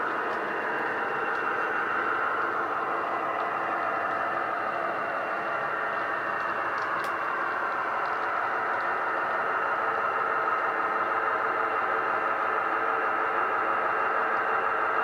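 Sound decoder in a model HST power car playing a recorded MTU diesel engine through a small speaker: a steady engine drone with a whine. It grows a little louder near the end as the train approaches.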